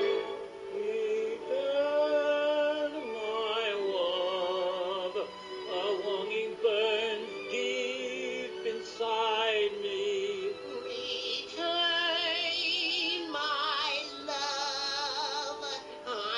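Operatic singing in a cartoon voice with wide vibrato, over an orchestral accompaniment; the sung phrases rise and fall with short breaks between them.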